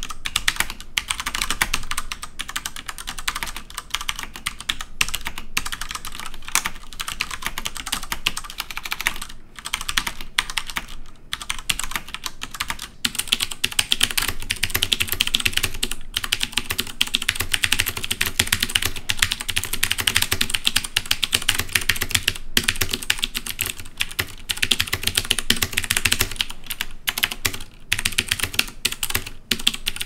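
Fast, continuous typing on a mechanical keyboard: first on Cherry MX Brown switches, which are tactile and not clicky, then, a little under halfway through, on clicky Cherry MX Blue switches. The keystrokes run as a dense stream of sharp clacks with only brief pauses.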